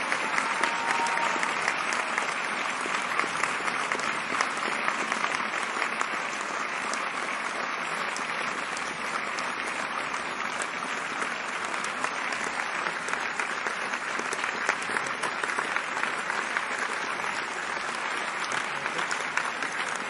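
A large theatre audience applauding steadily: dense, even clapping from many hands.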